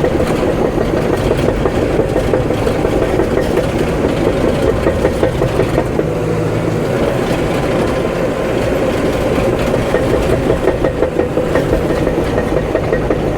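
CAT D5 bulldozer's diesel engine running steadily under way, with the dense clatter of its steel crawler tracks.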